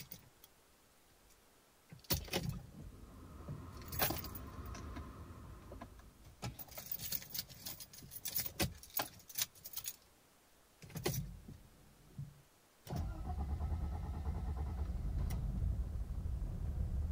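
Mercedes W124 engine cranking on the starter for several seconds without catching, a brief second crank, then firing about thirteen seconds in and settling into a steady idle. A hard cold start that the owner puts down to the original engine being down on compression; with the new battery the starter turns briskly.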